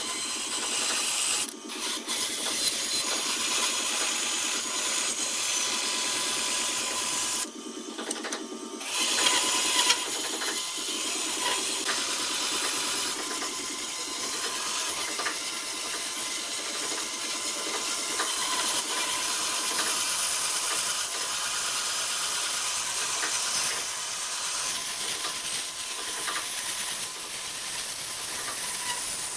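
Bandsaw running and cutting through a thick softwood block: a steady whine with the hiss of the blade in the wood, dropping away briefly twice in the first third.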